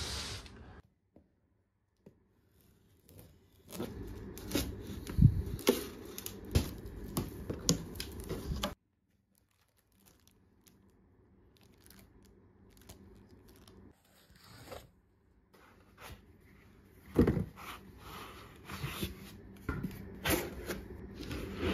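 Cardboard shipping box being opened and unpacked by hand: tearing and scraping of tape and cardboard with sharp clicks, then quieter handling of cardboard inserts and foam, and more crinkling and clicking near the end. The first busy stretch cuts off suddenly partway through.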